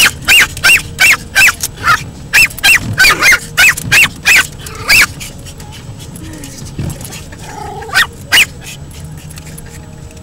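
Pomeranian barking at the moving windshield wipers: a rapid run of a dozen or so short, high barks, about three a second, for the first five seconds, then two more barks about eight seconds in.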